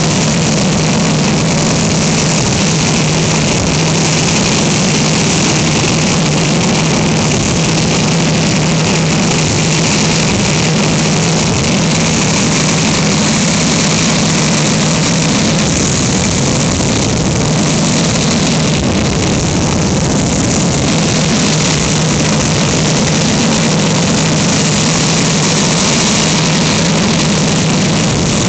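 Jet dragster's jet engine running steadily during a stationary flame-and-spark burn, a loud continuous rush with a steady low drone underneath that does not change.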